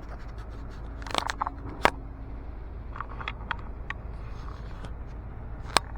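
Scattered sharp clicks and knocks over a steady low rumble, the loudest a little under two seconds in and another near the end.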